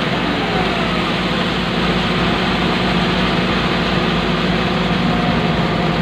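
Excavator's diesel engine running steadily, heard from inside the operator's cab, with a deep, unchanging drone.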